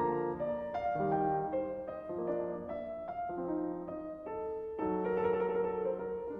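Instrumental background music: a keyboard, piano-like, playing a slow sequence of notes and chords, a new note or chord roughly every half second.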